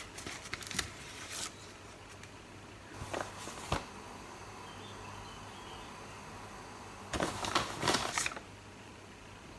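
Rustling and handling noises as balls of sequined cotton yarn are picked up and held up by hand: a bout near the start, a short one about three seconds in ending with a light click, and a longer one about seven seconds in.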